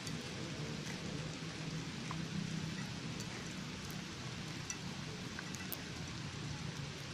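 Steady outdoor background noise: a low hum under an even hiss, with scattered faint ticks.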